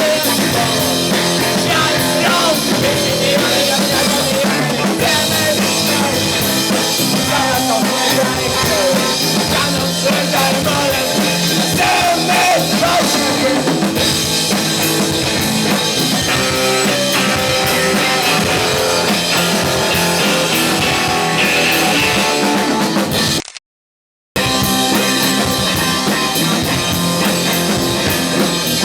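A rock band playing live with drum kit, bass and electric guitars, in an instrumental passage without vocals. The guitar lines bend in pitch. About 23 seconds in, the sound drops out abruptly for under a second, then the band carries on.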